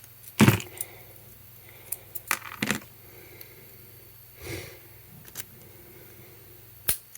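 Small metal keys and a cheap padlock clinking and clacking as they are handled, in about five separate sharp clicks, the loudest about half a second in.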